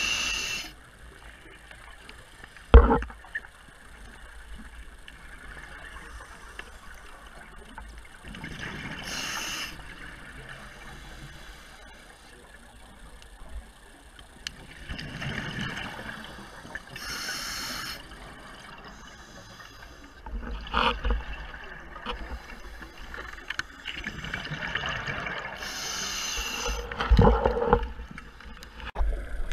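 Scuba diver breathing through a regulator underwater: a hiss on each inhale and a gurgling rush of exhaled bubbles, about every eight or nine seconds. A sharp knock about three seconds in, and a few clunks near the end.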